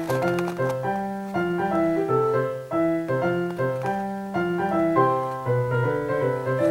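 Background music: a bouncy, cheerful piano or keyboard tune with a repeating bass line.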